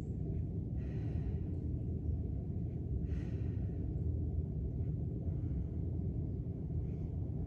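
A person breathing out hard during single-leg glute bridges, two clear breaths about two seconds apart and fainter ones after, over a steady low rumble.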